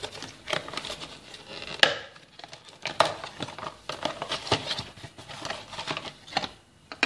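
Cardboard box being opened by hand and its insert pulled out: rustling and scraping of cardboard, with a few sharp knocks, the sharpest about two and three seconds in.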